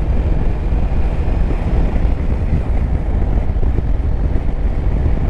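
Steady wind rush on the microphone of a Yamaha Tracer 9 GT motorcycle at road speed, with the bike's three-cylinder engine and tyre noise running beneath it.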